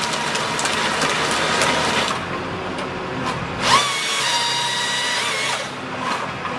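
A power tool or wood-cutting machine running loud and steady. About halfway through, the sound changes to a high, steady whine.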